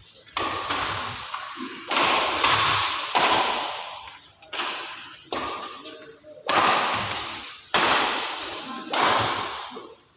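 Badminton rally: rackets striking the shuttlecock about ten times, each a sharp smack at an uneven pace, with the echo of the hall trailing after each hit.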